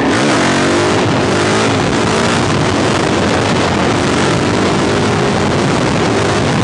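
2005 Suzuki DRZ400SM's single-cylinder four-stroke engine running under way, its note rising and falling, then holding steady, over a steady rush of wind.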